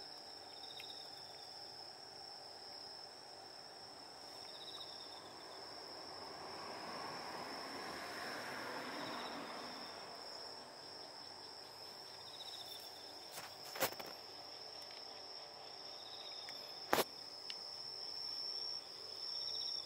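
Insects chirping at night: a steady, high, unbroken trill with a softer short chirp coming back every four seconds or so. A soft rushing swell rises and fades in the middle, and two sharp clicks come in the second half.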